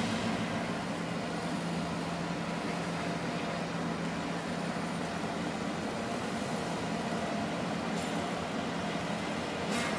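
Canadian Pacific diesel locomotive's engine running as it slowly hauls a train of tank cars, a steady low drone, with two brief rushes of noise near the end.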